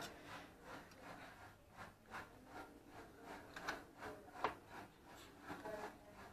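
Carving knife sawing back and forth through a roast leg of springbok in a foil-lined pan, steadied by a carving fork: a faint series of short strokes, about two or three a second.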